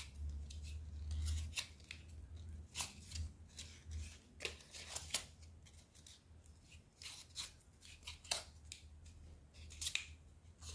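Faint, irregular crinkles and clicks of paper floral tape being stretched and wound around a wire orchid stem, over a low steady hum.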